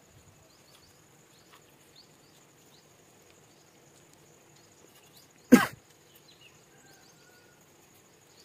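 A person coughs once, short and loud, about five and a half seconds in. Under it run a faint steady high-pitched hum and scattered faint high chirps.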